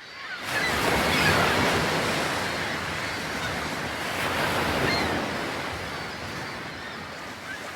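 Sea waves washing onto a beach, fading in and surging twice, about four seconds apart.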